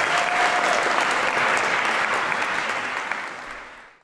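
Audience applauding, a dense patter of many hands clapping, fading out over the last second.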